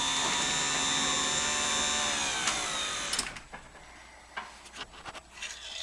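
Genie Silentmax 1200 garage door opener, converted to side mount, running the door with a steady whine, then slowing with a falling pitch and stopping about three seconds in. A few light clicks and knocks follow.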